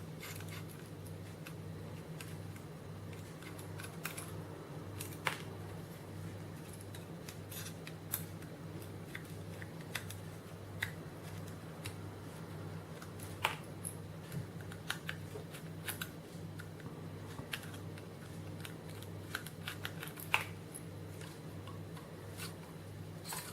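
Small screws being unscrewed from a laptop hard-drive mounting case with a screwdriver: scattered light clicks and ticks of the tool on the screws and metal, over a steady low hum.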